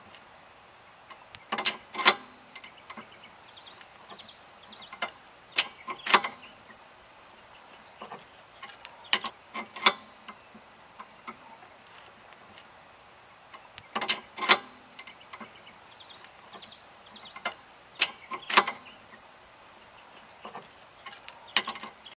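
Adjustable wrench clicking against a nut and threaded rod as it is set back on and turned a stroke at a time, tightening a homemade bushing press to draw a new bushing the last bit into a trailing arm. The sharp clicks come in clusters of two or three about every four seconds.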